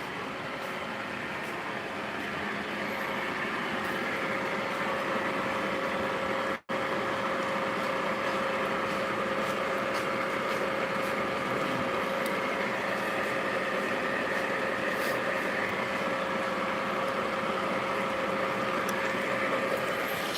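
Steady mechanical running noise with a constant hum-like tone, cutting out for an instant about six and a half seconds in.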